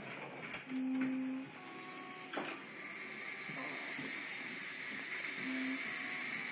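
Dental handpiece starting up about three and a half seconds in: a steady high-pitched whine over a hiss, working in a child's mouth. Before it, light clicks of instruments and two short low tones.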